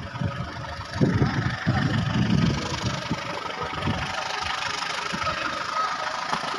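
CC 203 diesel-electric locomotive running under heavy power close by, its engine rumbling unevenly for the first couple of seconds before the sound settles into a steady rushing noise with a faint whine.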